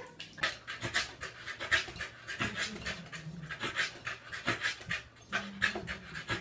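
A corgi panting hard and quickly, about three to four breaths a second, with its mouth open and tongue out.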